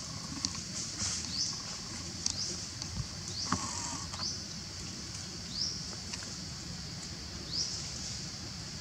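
Short high squeaks, each rising in pitch, repeated about every two seconds over a steady high hiss, with a few sharp clicks.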